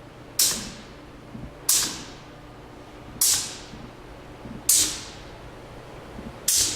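Pneumatic clamp cylinders and air valves on a Ritter R200E face frame clamp cycling. Each stroke releases a short, sharp hiss of exhaust air that fades quickly, five times about every one and a half seconds, with light knocks in between.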